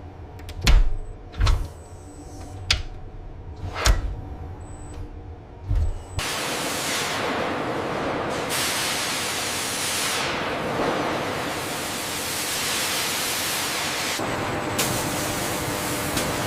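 Industrial machinery noise: five dull, heavy thumps at uneven intervals, then, about six seconds in, a sudden switch to a steady loud rushing hiss.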